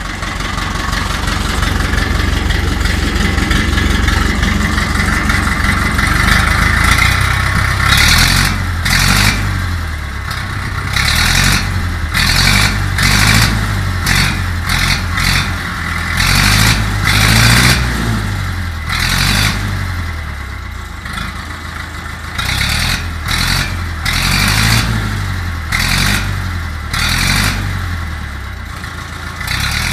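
Ursus C-360's four-cylinder diesel engine running through a new upright silencer: it idles steadily at first, then from about eight seconds in it is revved again and again in short bursts, each rising and falling.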